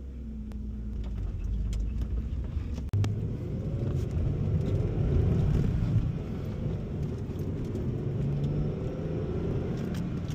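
Hyundai Tiburon's 2.7-litre V6 engine running while the car is driven. The engine note swells and rises in pitch from about three seconds in, then falls and rises again as it accelerates through the gears.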